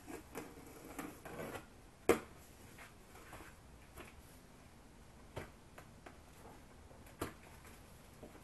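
Scattered knocks, clicks and light rustles of a large cardboard box being opened and handled, with one sharp snap about two seconds in and a few smaller knocks later on.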